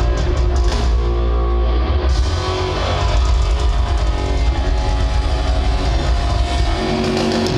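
Loud rock music with guitar and drums.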